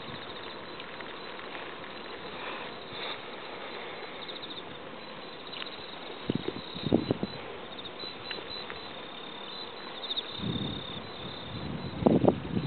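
Insects, crickets or the like, chirping in rapid high repeating pulses over a steady hiss. A few louder low bumps come around six seconds in and again near the end.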